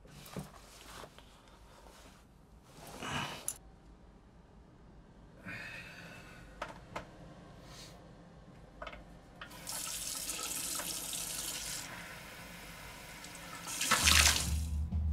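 Bathroom sounds: a few brief knocks and rustles, then water running from a tap into a sink for about two seconds. Near the end comes a sudden loud hit, a blow to the face, and a deep low drone starts under it.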